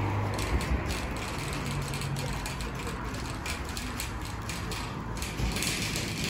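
Metal shopping trolley rattling as it is pushed along, its wheels and wire basket clattering in quick, irregular clicks.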